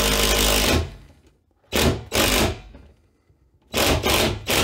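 Cordless drill driving a lag screw through a TV wall-mount plate into the wall stud: it runs steadily for the first second, stops, then is given short bursts on the trigger, two and then three, as the screw is snugged down.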